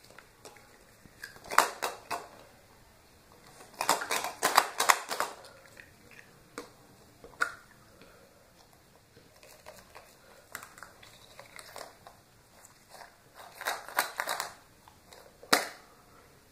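Surprise eggs and candy packaging being opened by hand: irregular bursts of crinkling, clicking and snapping, with a few louder clusters and single snaps in between.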